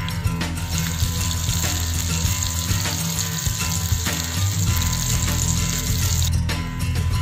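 Flour-coated crucian carp sizzling in hot sunflower oil in a frying pan: a steady hiss that starts about a second in and cuts off about a second before the end. Background music plays throughout.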